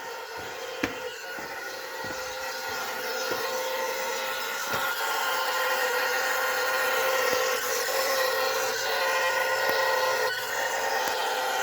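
A vehicle humming with the ignition switched on and the engine not running: a steady whine made of several tones, growing louder over the first few seconds and dipping briefly near the end. A few sharp clicks come near the start.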